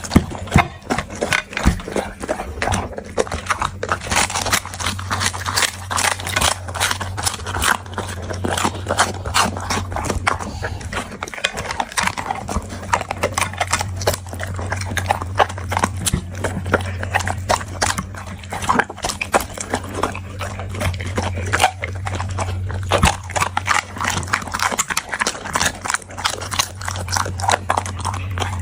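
Dog eating, chewing and crunching its food in quick, irregular clicks and crackles, over a steady low hum.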